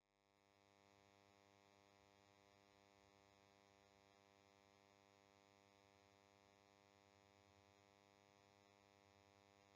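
Near silence, with only a very faint steady electrical hum that fades in over the first second and cuts off at the end.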